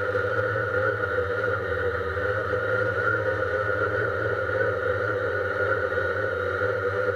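Quadcopter drone's electric motors and propellers running with a steady whine, picked up by the camera mounted on the drone in flight.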